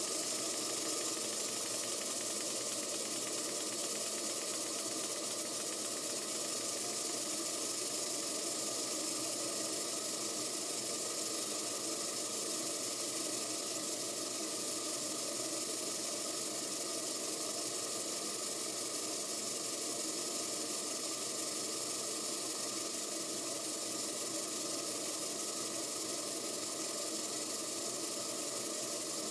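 Stuart Turner twin launch model steam engine running steadily on live steam, a continuous hiss of steam along with the engine's running noise.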